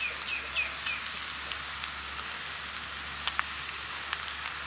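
Steady sizzling hiss of chilli-coated coconut pieces frying in a clay pot over a wood fire, with a few sharp clicks after about three seconds.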